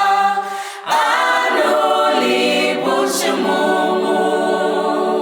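Unaccompanied group of voices singing a birthday song, holding long notes; the singing breaks off briefly just under a second in and then resumes with a slide in pitch.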